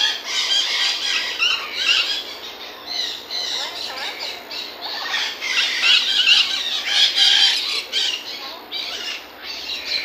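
A flock of parrots in an aviary squawking and screeching, a dense, unbroken chorus of short, high calls overlapping one another.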